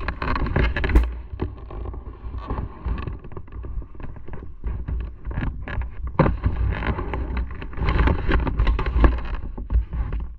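Motorcycle on the move, with wind buffeting the microphone over the engine and road noise; the gusts rise and fall irregularly.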